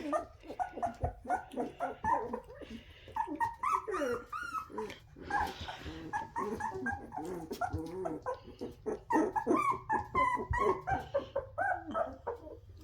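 Aussiedoodle puppies whining, yipping and giving small barks in a string of many short calls.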